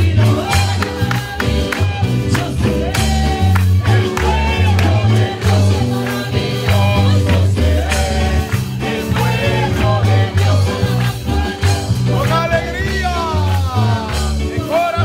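Live worship chorus: a woman sings lead through the church PA over a drum kit and electric guitars.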